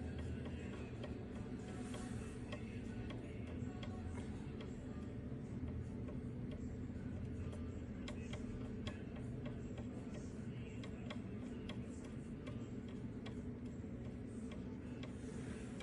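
Steady low electrical hum from bench equipment, with irregular light clicks and ticks from small tools handled during PS5 HDMI port repair work.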